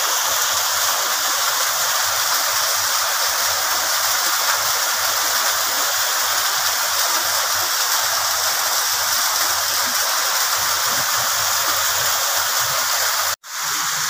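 Small waterfall falling in thin streams over rocks: a steady rush and splash of water. The sound cuts out for a moment shortly before the end.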